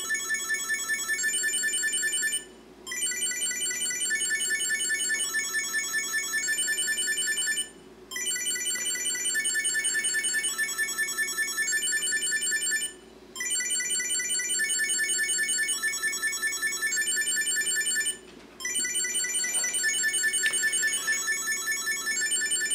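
Chipolo Plus Bluetooth tracker ringing from its phone app: a high-pitched electronic beeping tune played in phrases of about five seconds with brief pauses between, stopping near the end. It peaks at 88.6 dB on a sound meter, well short of the 100 dB claimed for it.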